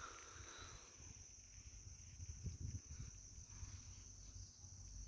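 Faint steady high-pitched insect drone, with soft low rumbles on the microphone.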